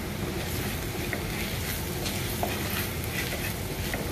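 Sliced onions and ground spices sizzling in coconut oil in a non-stick pan, the masala being fried down, while a wooden spatula stirs and scrapes through them. A steady sizzle with light scrapes every half second or so.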